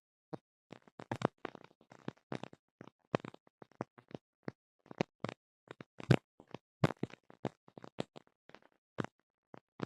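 Irregular sharp clicks and pops, several a second with dead silence between them: the unexplained noise picked up by a tablet's recording.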